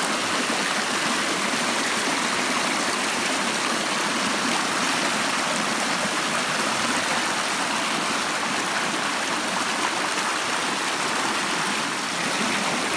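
Running stream water, a steady, unbroken rush with no pauses or changes.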